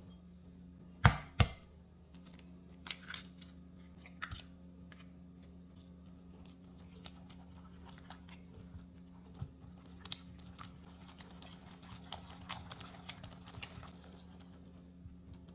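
Kitchen food-preparation handling sounds: two sharp knocks about a second in, then scattered light clicks and soft crunchy, squishy noises, over a steady low hum.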